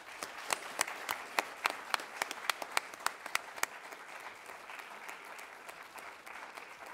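Audience applauding at the close of a speech, with a few loud single claps standing out in the first few seconds before it settles into even applause.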